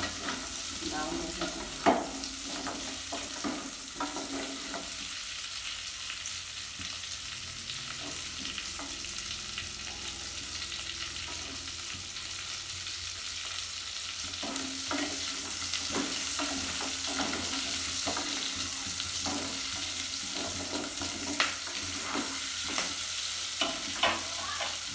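Pork sizzling as it is dry-fried in a stainless steel pot, with long cooking chopsticks knocking and scraping against the pot as it is stirred. The knocks bunch in the first few seconds and again in the second half, the sharpest about two seconds in, over a steady sizzle.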